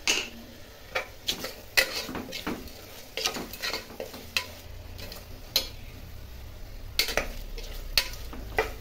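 A steel ladle scraping and clinking against the inside of a pressure cooker as a frying onion-tomato masala is stirred, in quick irregular strokes, over a steady sizzle of the masala frying in oil.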